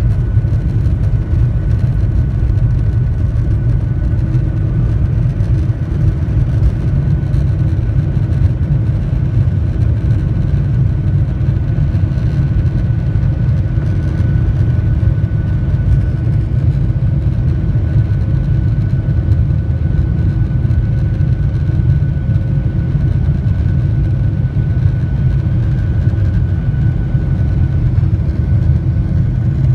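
Boeing 737-800's CFM56-7B turbofan engines at takeoff power, heard inside the cabin over the wing: a loud, steady, deep rumble with a faint high whine, through the end of the takeoff roll and into the climb.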